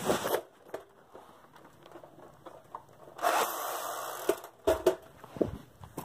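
Handling noise: scattered light clicks and knocks, a rustling hiss lasting about a second a little after three seconds in, and a couple of dull thumps near five seconds.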